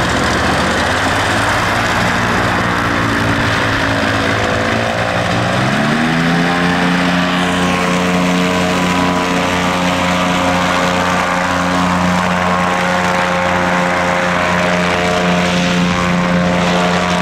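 SM-440 airboat's four-stroke engine and air propeller running, rising in pitch about five to six seconds in and then holding steady at higher revs as the boat accelerates onto the plane.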